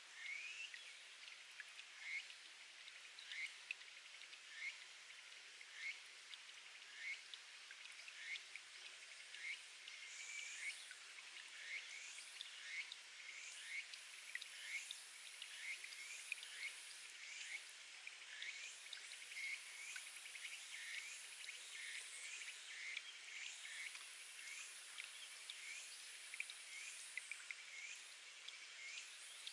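Spring water dripping from rock into a pool, each drop a short rising plink, about one every second and a bit, over a faint steady hiss of trickling water.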